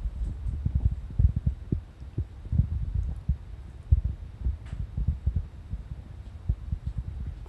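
Irregular dull low thumps and rumble, a few a second: handling noise from a handheld camera being moved about.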